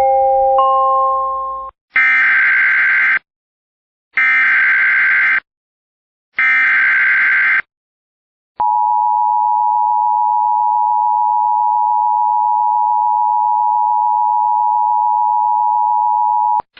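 Emergency Alert System alert tones. The last notes of a short rising chime die away, then come three buzzy, screechy bursts of SAME digital header data, each a little over a second long. After a pause the steady two-tone attention signal sounds for about eight seconds and cuts off suddenly just before the voice message.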